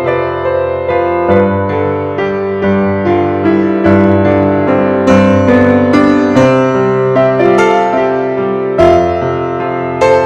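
Background piano music: struck notes in a melody over held chords.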